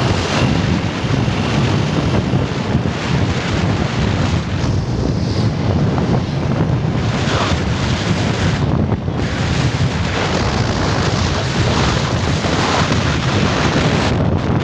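Heavy wind buffeting the microphone: a loud, steady rumble without a break.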